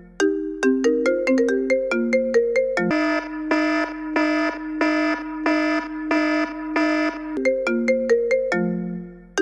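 Looping electronic melody in the style of a phone ringtone or alarm tone, made of short struck notes. A quick run of notes gives way to a chord repeated about twice a second, and the quick run returns near the end.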